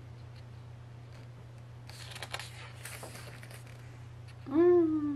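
Photobook pages being handled and turned, with soft rustling over a steady low hum. Near the end comes a short hummed 'mm' from a person, the loudest sound.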